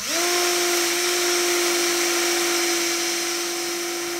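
Makita cordless drill spinning a model-locomotive motor armature at high speed while metal sandpaper is pressed against its commutator: it spins up with a quick rise in pitch, then a steady whine over the hiss of sanding. The sanding is taking shallow grooves out of the worn commutator.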